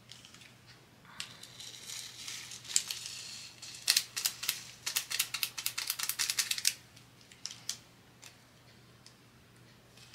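A small plastic bag of resin diamond-painting drills crinkling as it is handled. Then a fast rattle of clicks, about six a second, for a few seconds as the drills are tipped and tapped out into a plastic storage container.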